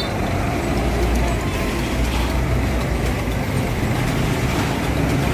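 Diesel engine of a coach bus running close by as a steady low rumble, mixed with the noise of road traffic passing.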